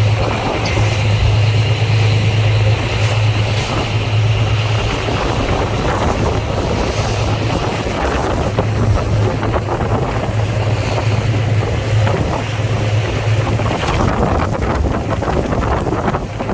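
Boat under way at sea: its engine gives a steady low drone under the rush of water along the hull, with wind buffeting the microphone.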